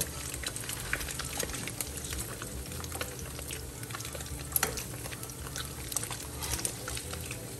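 Beef loaf slices sizzling and crackling as they fry in hot oil in a frying pan, with a metal spatula scraping against the pan as the slices are turned. One louder pop comes a little past halfway.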